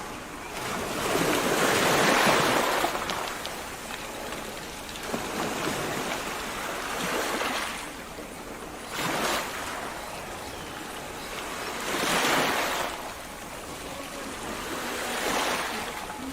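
Steady rushing noise that swells and fades every few seconds.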